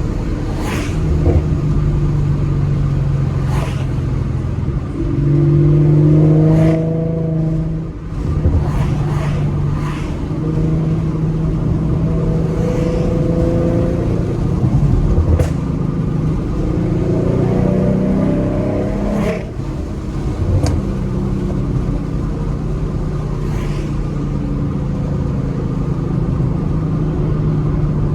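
2014 Mustang's 3.7-litre V6 running through a Roush axle-back exhaust and BBK shorty headers: a steady cruising drone that rises in pitch twice as the car accelerates, about five and seventeen seconds in, each time dropping briefly as the throttle is lifted. Scattered sharp clicks sound over the engine.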